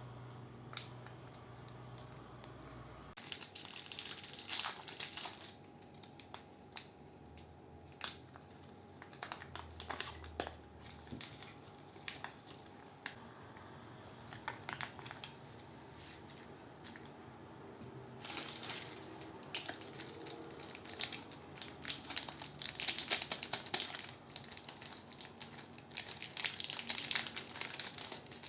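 Plastic sweet wrappers and packaging being handled and unwrapped, crinkling in bursts with small clicks and taps between. One burst of crinkling comes a few seconds in, and a longer stretch of crinkling runs through the second half.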